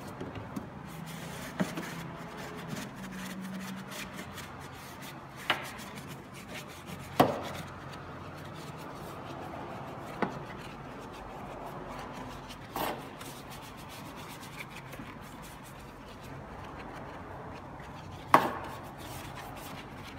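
Small detail brush, an old paint brush, scrubbing degreaser foam into the crevices of an engine bay, the bristles rubbing steadily over plastic and metal parts. A few sharp knocks, the loudest about seven seconds in and near the end.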